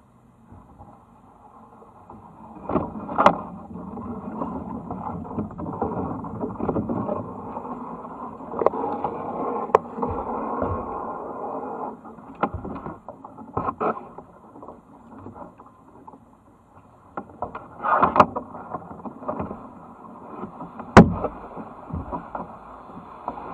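Kayak paddle strokes splashing in the water, with leaves and branches brushing against the boat, and several sharp knocks, the loudest near the end.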